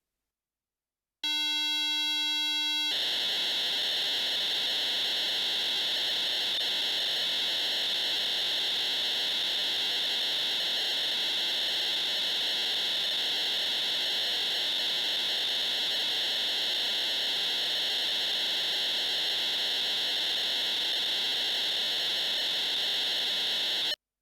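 Teenage Engineering PO-32 Tonic sound-pack transfer audio: about a second in, a cluster of steady electronic tones sounds for under two seconds, then a loud, even, modem-like data hiss runs for about twenty seconds and cuts off abruptly. This is the encoded data signal played into the PO-32's microphone to load the sound pack.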